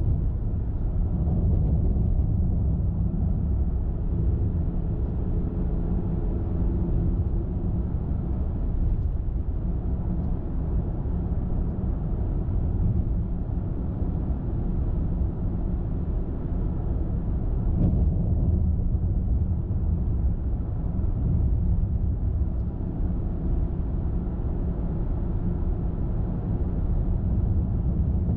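Car driving at a steady speed: a continuous low rumble of tyres and engine on the road, with a faint tone for a few seconds in the first third and a small click near the end.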